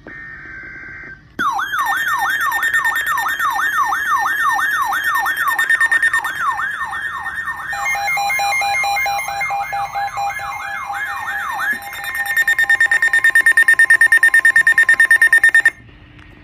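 Electronic alert tones of an emergency alert warning: a short buzzy burst, then a falling siren-like sweep repeating about three times a second, joined partway through by pulsed beeps. Near the end it changes to a loud high tone pulsing about five times a second, which cuts off suddenly.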